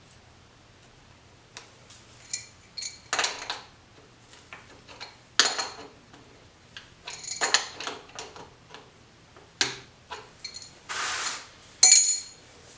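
Small metal tools and hardware clinking and clattering in irregular knocks, several with a short bright metallic ring, while the heater's power leads are hooked up. A short scraping rustle about eleven seconds in, and the loudest clink near the end.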